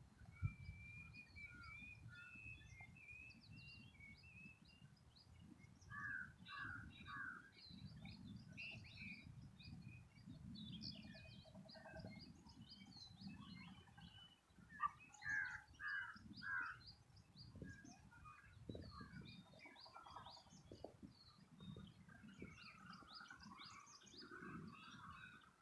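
Morning birdsong: small birds chirping and twittering throughout, with a crow cawing in runs of three or four calls about six seconds in and again around fifteen seconds. A faint low rumble lies underneath.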